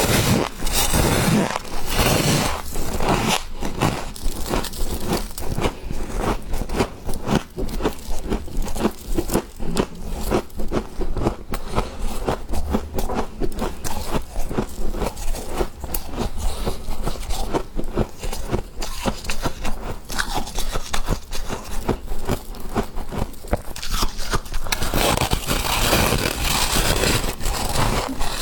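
Freezer frost being chewed and crunched: a dense, rapid run of crisp crunches, with stretches of scraping, rustling hiss near the start and near the end.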